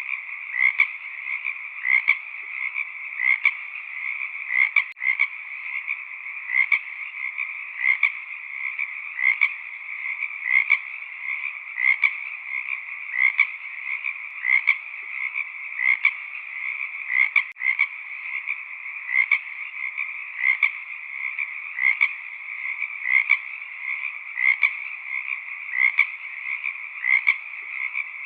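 A chorus of frogs croaking continuously, with louder calls repeating at a steady pace of about one or two a second over an unbroken background chorus.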